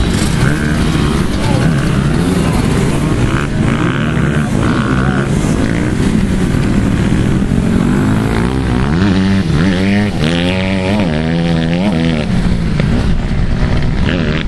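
Several motocross dirt bikes riding past on a dirt track, engines revving up and down. From about two-thirds of the way in, one engine's pitch rises and falls over and over in quick swings.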